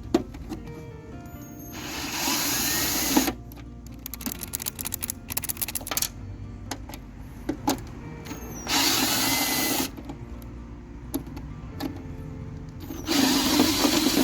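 Power drill spinning out the mounting bolts of a riding-mower deck blade spindle, in three short runs of about a second each, with small clicks between them.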